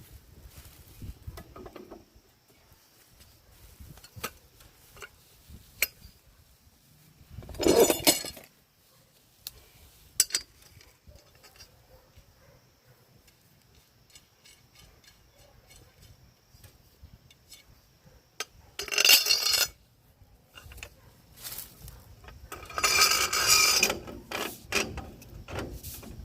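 Metal tools clinking and knocking against metal in scattered strikes, with three louder rattling bursts: one about eight seconds in, one a little past halfway, and a longer one near the end.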